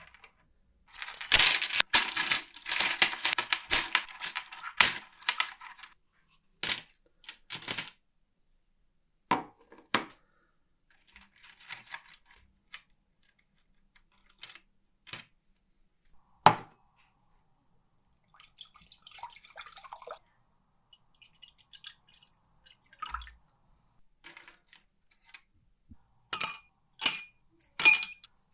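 Small metal parts clinking, clicking and scraping as they are handled, with a stretch of rustling, scraping noise near the start and a few ringing metallic clinks near the end.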